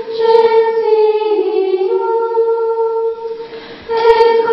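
Female voices singing a slow hymn in long held notes, with a short break between phrases near the end.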